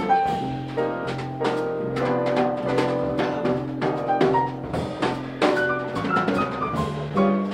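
Jazz piano trio playing: grand piano, double bass and drum kit together, with a steady low bass line under the piano and frequent drum and cymbal strokes. In the second half a line of higher notes steps downward.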